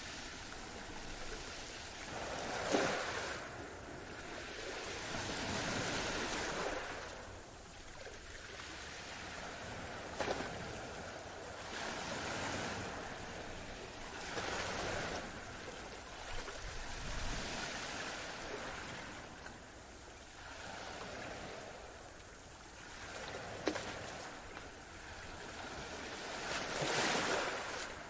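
Ocean surf: waves washing in and breaking one after another, a rushing noise that swells and ebbs every few seconds. The sharpest breaks come about three seconds in and near the end.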